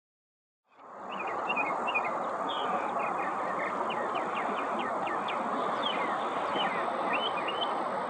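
Northern mockingbird singing a run of varied short phrases that mimic other birds: quick chirps, slurred gliding notes and rapid clicking notes, starting about a second in. Under the song is a steady loud background noise that begins at the same moment and is louder than the bird.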